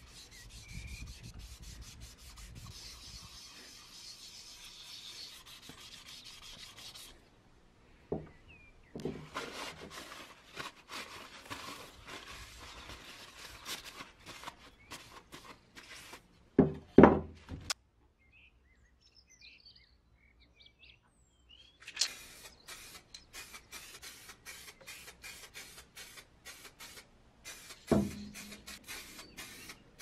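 Wet-sanding primer on a metal lighter case by hand with fine sandpaper: quick rubbing strokes, and the case wiped with a paper towel. A few louder knocks from handling break it, the loudest about halfway through, followed by a few seconds of near quiet.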